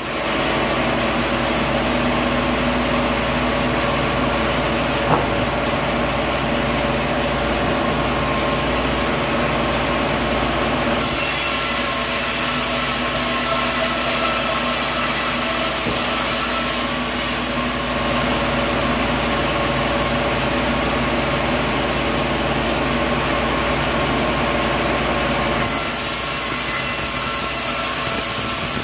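Sawmill machinery running steadily with an engine-like hum, with a single sharp click about five seconds in.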